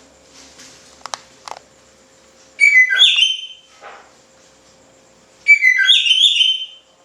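Oriental magpie-robin (kacer) singing loudly: two bursts of rich, whistled song about a second long each, made of quick stepping notes, one near the middle and one near the end. Two short clicks come earlier.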